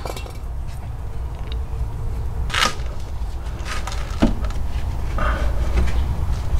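Three short knocks and scrapes as a greased rubber sway-bar bushing and its bracket are worked into place on a car's front sway bar, over a steady low hum.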